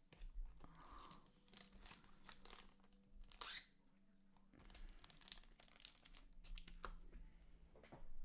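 Faint crinkling and rustling of foil trading-card pack wrappers and cards being handled, with a louder crinkle about three and a half seconds in.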